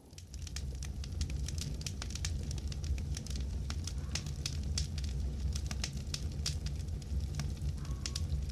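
Campfire crackling: irregular sharp pops and snaps over a steady low rumble. It starts and stops abruptly.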